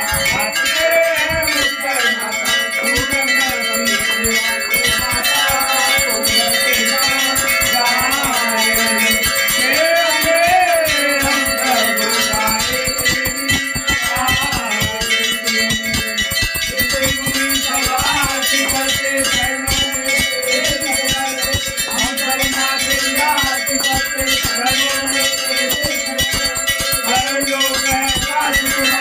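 Temple bells rung rapidly and continuously for the aarti, a dense ringing clang that never pauses.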